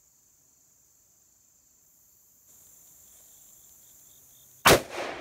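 Steady high-pitched insect noise, then near the end a single loud shot from a muzzle-braked Bergara LRP Premier rifle in .308 Winchester, its blast trailing off in echo.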